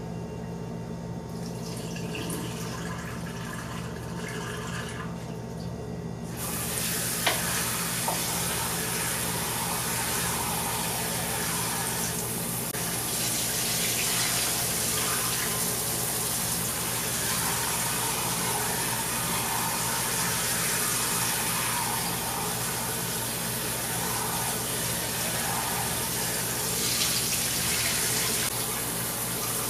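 Kitchen faucet running cold water into a container of rice in the sink as the rice is rinsed clear of starch. The flow is softer for the first few seconds, then comes on full about six seconds in and runs steadily.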